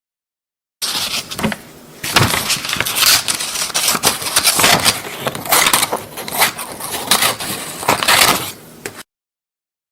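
Scissors cutting paper: a long, dense run of snips and paper rustling that starts about a second in and cuts off shortly before the end.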